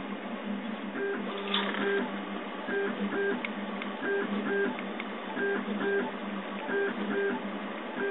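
Prusa Mendel RepRap 3D printer at work: its stepper motors whine in short pairs of tones as the print head travels back and forth, repeating about every 1.3 seconds, over a steady hum.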